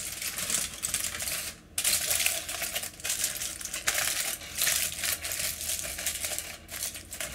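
Aluminium foil crinkling and crackling as hands press and crimp it around a roast, with a brief pause about a second and a half in.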